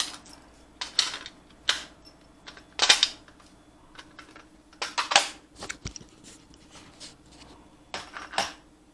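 Irregular clicks and clacks of a laptop and its newly replaced keyboard being handled, about eight in all, the loudest about three seconds in, over a faint steady hum.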